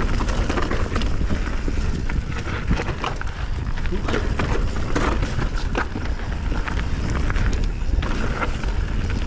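Canyon Spectral 29 mountain bike running down a dirt forest singletrack: a steady rumble of tyres on the trail and wind on the chest-mounted camera, with frequent sharp clicks and rattles from the bike over the bumps.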